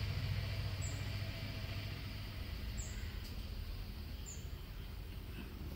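Faint outdoor background with a steady low hum, broken by three brief high chirps from a small bird, spaced a second or two apart.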